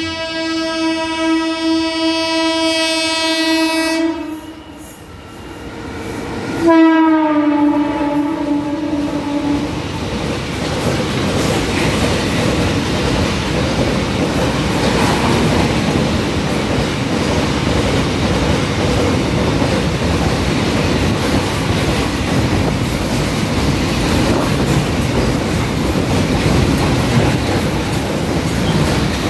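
WAG-7 electric locomotive sounding its horn twice: a steady blast of about four seconds, then about seven seconds in a second blast whose pitch drops as the locomotive passes. After that, Concor container freight wagons run past at speed with a continuous loud rolling noise of wheels on rail.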